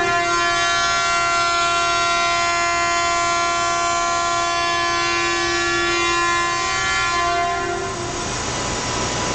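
0 Series Shinkansen horn sounding one long departure blast, a steady loud note that stops about eight seconds in.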